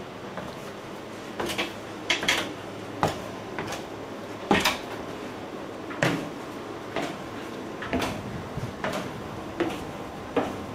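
Footsteps going down wooden stairs: knocks on the wooden treads about once a second, a few in quick pairs.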